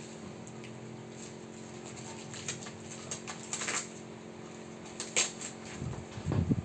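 Plastic packaging being torn and unwrapped by hand: scattered crinkles and scratches that become louder and busier near the end, over a steady low hum.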